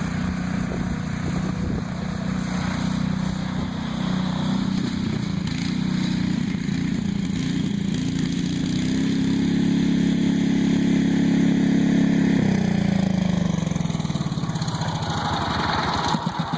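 Cub Cadet riding lawnmower engine running steadily, then revving higher about nine seconds in and holding there for a few seconds. It drops back and slows down near the end.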